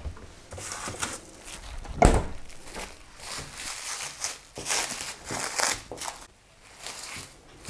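A single thump about two seconds in, then plastic cling film crinkling and rustling as it is peeled open around a block of chilled shortcrust dough.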